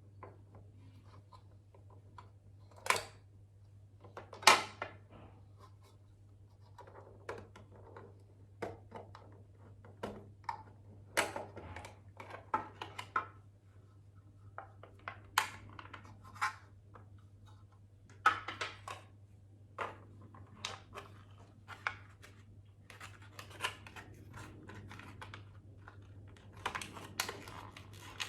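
Retail packaging of a dual-USB car charger being opened and handled: irregular clicks, scrapes and rustles of cardboard and plastic. The two loudest clicks come about three and four and a half seconds in.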